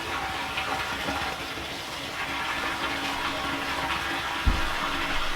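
Water running steadily, with a short low thump about four and a half seconds in.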